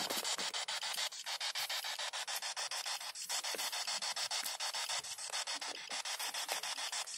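P-SB7 spirit box sweep radio scanning rapidly through stations: a steady hiss of radio static chopped by quick regular clicks, about ten a second.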